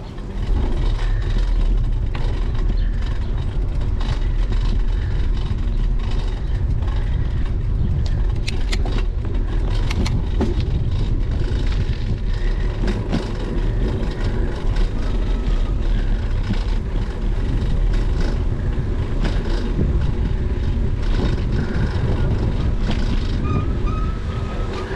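Wind buffeting the microphone of a bicycle-mounted GoPro, mixed with the bike's tyres rolling over rough asphalt: a steady, heavy low rumble. A few sharp clicks come about nine to ten seconds in.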